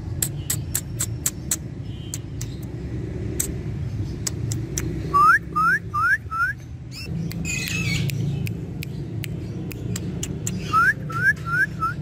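Indian ringneck parakeet whistling: a run of four quick rising whistle notes about five seconds in, and another run of four near the end, over a steady low hum.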